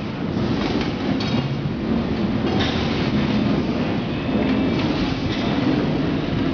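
Industrial bag filling and packaging machine running: a steady mechanical rattle with a few sharper metallic clanks.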